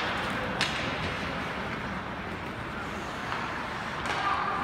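Ice hockey arena ambience during play: a steady hubbub of the rink with one sharp crack about half a second in.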